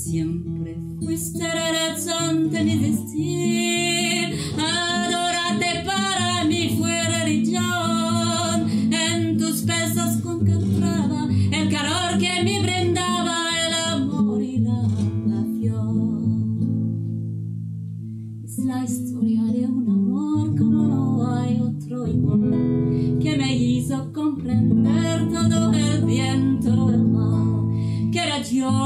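A woman singing with acoustic guitar accompaniment. About halfway through the voice stops for several seconds while the guitar plays on, then the singing returns.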